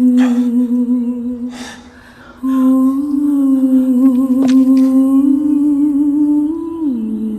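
Wordless humming of a slow melody in long held notes with a slight vibrato. It breaks off briefly about two seconds in and steps down in pitch near the end.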